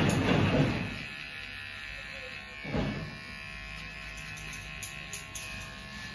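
Cordless electric hair clipper buzzing steadily as it trims hair around the ear and sideburn. Two louder bursts of noise come at the start and about three seconds in.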